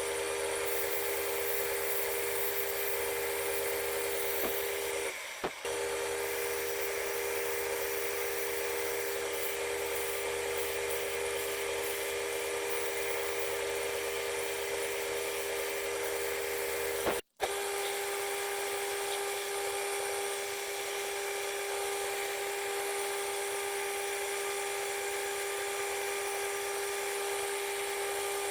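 Wood lathe running: a steady motor whine with hiss over it. It cuts out for a moment about seventeen seconds in and comes back with a slightly different pitch.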